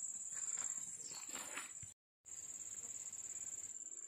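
Insects singing in one steady high-pitched drone, with a few soft footsteps on a dirt path in the first two seconds. The sound cuts out completely for a moment about halfway through.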